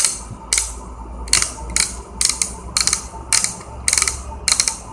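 Rotating focus head of a handheld solar LED torch being twisted to adjust the beam's spread, giving short bursts of ratcheting clicks about twice a second.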